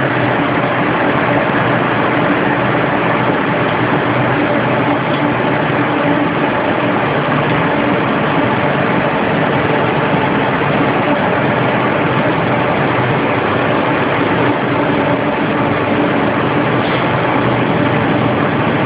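Steady, loud machinery hum of several pitches over an even hiss, unchanging in level.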